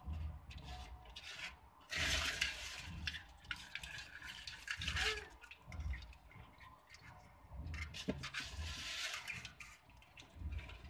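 Live crabs being stirred by hand in a basin of shallow water: irregular splashing and sloshing, with shells and legs scraping against the basin, coming in uneven bursts with two longer, louder spells.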